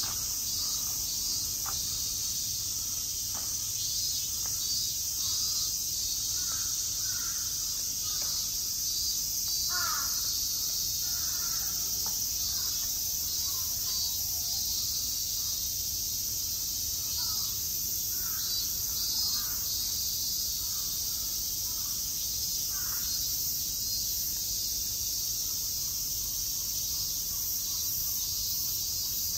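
Bird calls, short and harsh, repeating every second or two over a steady high-pitched insect drone.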